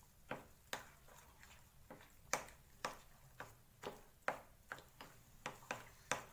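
A spoon clicking and scraping against a glass bowl while stirring powdered sugar into thick strained curd, about two light clicks a second.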